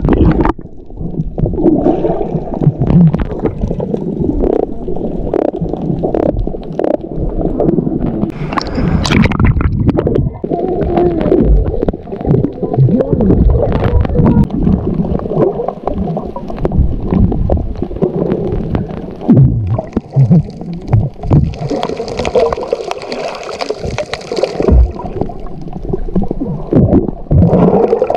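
Muffled sloshing and gurgling of water with scattered knocks, with a brief brighter rush about nine seconds in and a hissing stretch from about 21 to 25 seconds.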